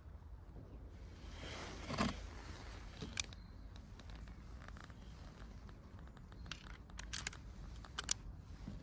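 Handling noise from a pellet revolver and its ammunition: a brief rustle about two seconds in, then a scattering of short, sharp clicks, the loudest about three seconds in and near the end.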